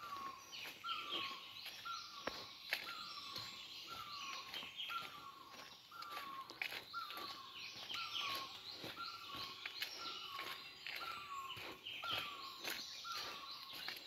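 Birds chirping: one bird repeats a short falling note evenly about twice a second, over a chatter of higher, quicker chirps.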